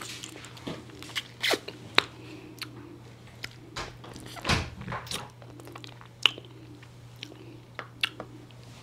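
Close chewing and mouth noises of someone eating candy, a series of irregular clicks and smacks. A faint steady low hum runs underneath.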